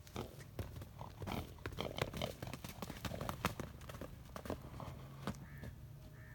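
Horse's hooves striking the ground in quick, irregular beats, thinning out after about four and a half seconds.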